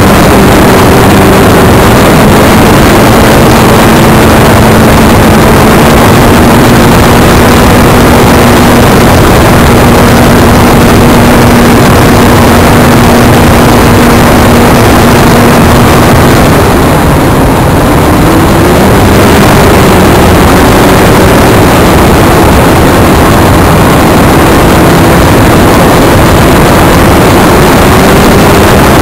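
Multiplex Magister RC model airplane's motor heard from the onboard camera, a steady drone buried in heavy, overloading wind noise. The pitch steps up a couple of seconds in, drops with a brief dip in level past the middle as the throttle is eased, then creeps back up.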